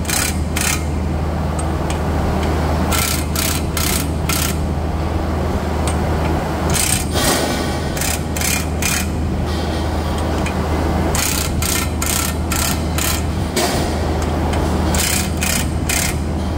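A power wrench run in short bursts, in groups of three to five, on the bolts of a pulp refiner's rotor hub, over a steady low machinery hum.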